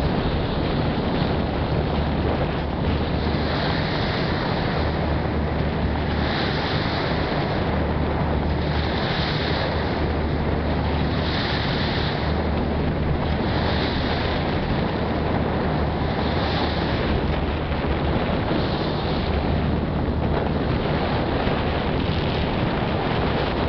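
Ferry running, with a steady low engine hum under the rush of water along the hull and wind buffeting the microphone. A hiss swells and fades about every two and a half seconds.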